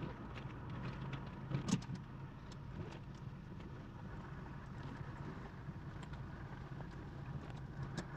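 Steady low hum of a car engine, heard from inside the cabin as the car rolls slowly forward, with a few faint clicks, one a little under two seconds in.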